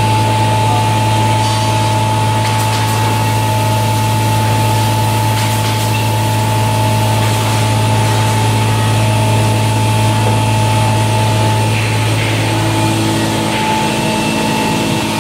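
Large CNC wood router running: a steady, loud machine hum with constant higher whining tones from its spindle and dust extraction.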